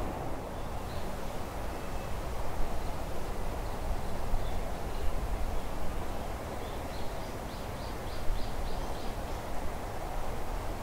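Forest ambience: a steady rustle of wind through the trees. A small bird calls faintly, once about a second in, then a quick run of about eight short high notes about seven seconds in.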